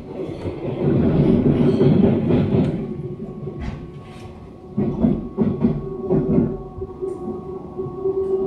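Inside the cabin of a Taiwan Railways EMU700 electric multiple unit running on the line: a loud rumble of wheels on rails, with a run of clattering knocks about five seconds in. A steady hum tone comes in about three seconds in and holds.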